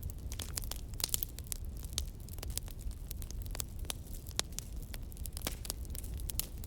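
Wood fire in a fireplace crackling, with many sharp irregular pops and snaps over a steady low rumble.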